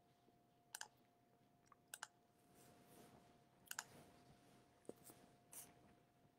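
Near silence broken by a few faint computer clicks, three of them in quick pairs, about one every second or so.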